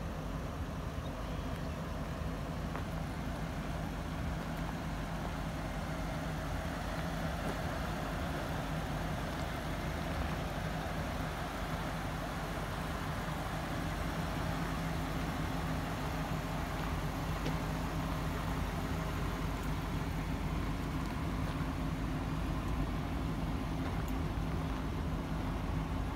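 Engine of a 1946 Ford jailbar truck on a 2000 Mercury Mountaineer chassis idling steadily, an even low hum without revs.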